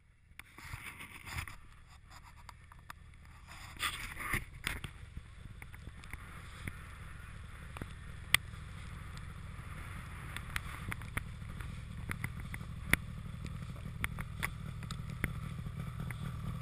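Snowmobile engines idling: a steady low rumble that grows slowly louder, with occasional sharp clicks.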